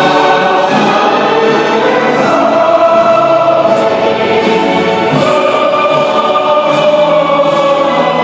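Live music from a small band led by violins, with voices singing along in long held notes.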